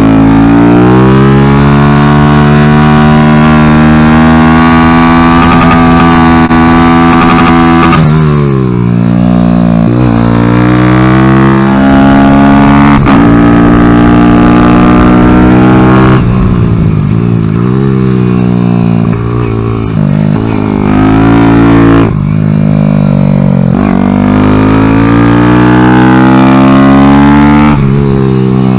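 Kawasaki Z125's small single-cylinder engine at high revs on track. Its pitch climbs steadily and drops away sharply several times as the throttle closes and it shifts down, then climbs again.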